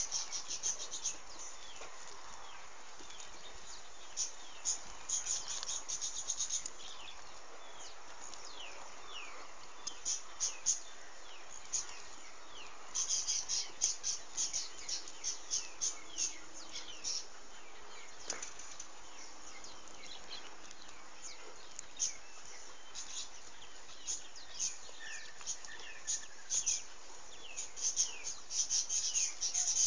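Small birds chirping: bursts of rapid, short, high falling notes that come and go every few seconds over a steady background hiss.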